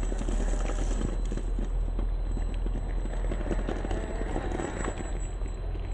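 CrossRC XT4 radio-controlled rock crawler clambering over a boulder: irregular knocks and clatter of its tyres and chassis against the rock.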